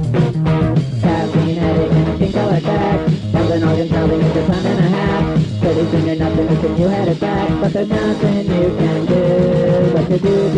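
Loud rock band recording with electric guitar, bass and drums keeping a steady beat, and a voice singing over it.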